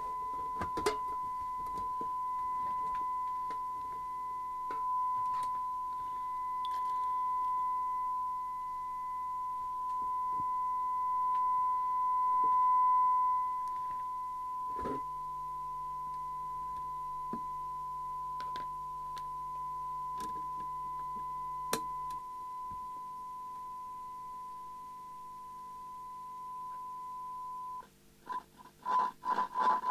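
A steady, high-pitched pure tone held unbroken, cutting off near the end. A few light clicks and knocks come from hands handling the radio's metal case.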